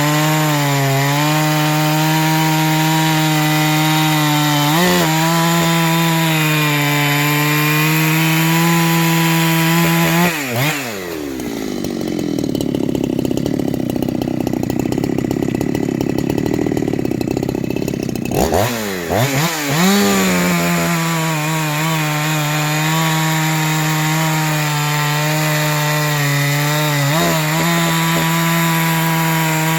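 Ported Husqvarna 372XP-clone chainsaw held at a steady high rev. About ten seconds in it bogs down as the chain cuts into wood, then revs back up to full speed after about seven seconds and runs on at high revs.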